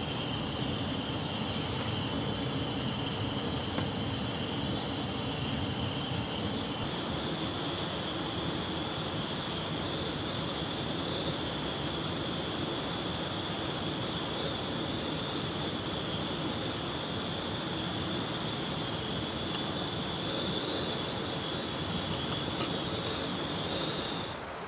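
Primus Gravity 3 gas canister stove burner running at full flame to heat water for tea: a steady hiss with several high whistling tones over it. The tones shift slightly about seven seconds in, and the sound cuts off abruptly near the end.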